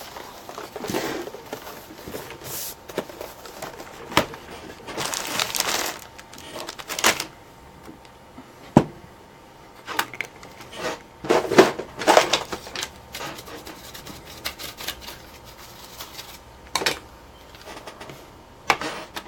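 Irregular plastic clicks, knocks and rattles of a laptop being reassembled, as its CD drive is fitted back into its bay.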